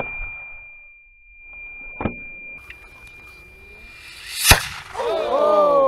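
Aluminised sugar-propellant rocket motor exploding (a case failure from over-pressure): a sharp crack about two seconds in, then a loud bang about four and a half seconds in, followed by several squealing whistles falling in pitch. A steady high tone runs underneath.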